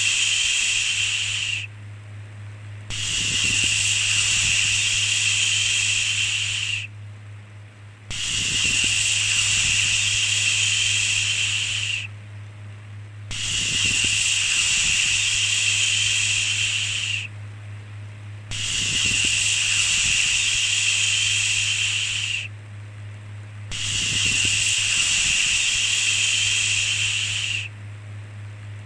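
A repeated 'shhh' shushing sound, high-pitched and hissy. Each shush lasts about four seconds and is followed by a pause of about a second, so there are roughly six shushes. A steady low hum runs underneath.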